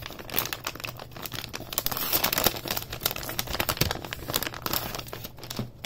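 Anti-static shielding bag crinkling as a graphics card is worked out of it by hand: a dense run of plastic crackles, loudest about two seconds in.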